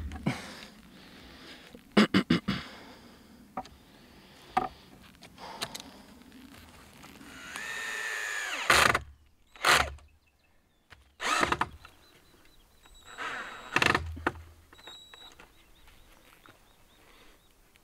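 Power drill driving into timber: a second or so of steady whine that winds down at the end. Around it are several sharp knocks of wood and tools, including a quick run of strikes about two seconds in.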